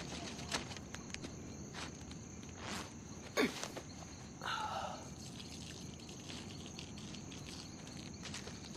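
Night ambience with a steady high cricket chirring, and light rustling of leaves and footsteps in the brush. About halfway through there is a sharp knock, then a brief falling vocal sound like a man's sigh of relief.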